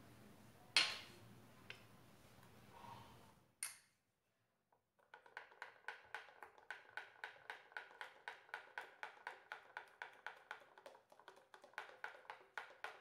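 A sharp clink about a second in. From about five seconds in, a plastic ladle beats thick besan batter in a glass bowl, tapping the bowl in a steady rhythm of about four strokes a second. This is the quick mixing right after baking soda and baking powder go into khaman dhokla batter.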